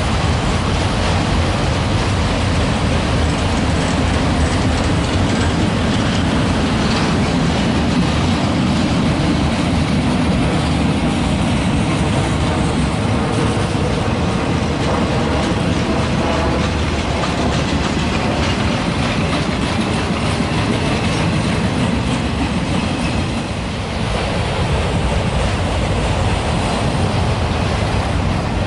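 Freight train rolling past close by: steady loud noise of wheels on rails and the rumble of the cars going by.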